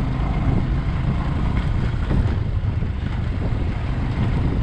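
Wind rushing steadily over the microphone of a moving motorcycle, a low rumbling rush, with the Bajaj Avenger 220's engine running underneath.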